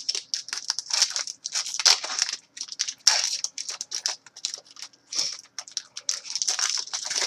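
Foil wrapper of a hockey card pack being torn open and crinkled in the hands: a run of irregular, crackling rustles.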